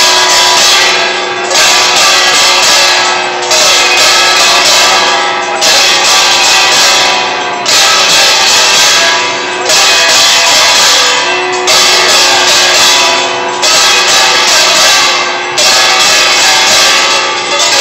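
Temple aarti percussion: brass gongs beaten with sticks, with bells and hand cymbals, clanging loudly and without a break in a steady, regular beat.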